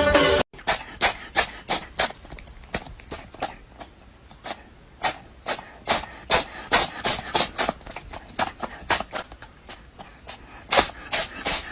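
A dog making a rapid, uneven run of short, sharp, breathy sounds, about three or four a second, after music cuts off half a second in.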